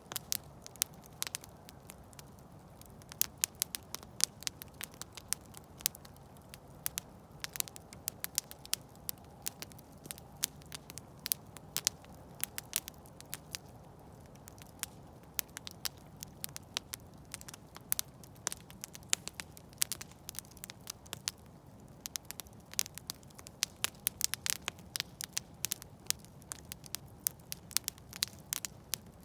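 Campfire burning, wood crackling and popping in frequent irregular snaps over a low, steady rumble of flame.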